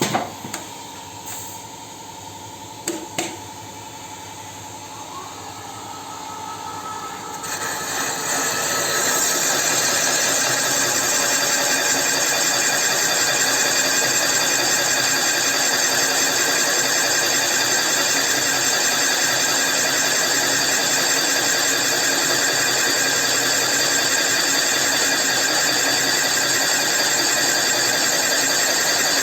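Machine tool cutting valve-seat pockets in an MTZ D-240 diesel cylinder head: a few clicks, then about seven seconds in the machine comes up to speed over a couple of seconds and runs steadily and loudly while it cuts.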